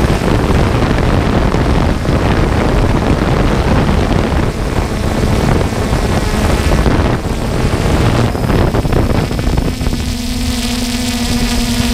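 Drone's propellers and motors whirring, heard close up from the camera riding on the drone, with a dense rushing noise of propeller wash and wind on the microphone. About ten seconds in, a steady motor hum comes clearly through the rush.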